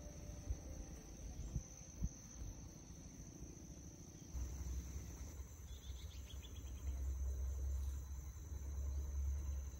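Insects in grassland chirring in one steady high-pitched tone. A low rumble comes in about four seconds in, and there are a few faint clicks near the start.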